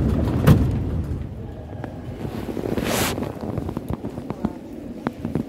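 Metro train and platform noise: a low rumble, a sharp knock about half a second in, and a hiss that swells and cuts off about three seconds in, with a few light clicks near the end.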